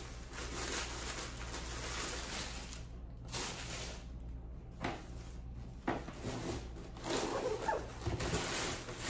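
Cardboard box being opened by hand, with the packaging rustling and scraping and a few short knocks.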